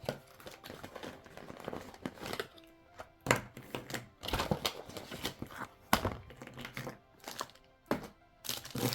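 Paint-kit items being unpacked by hand: irregular knocks and clatters as pieces are picked up and set down, with some crinkling of packaging, the sharpest knocks a little past three seconds and near six seconds. Faint music plays underneath.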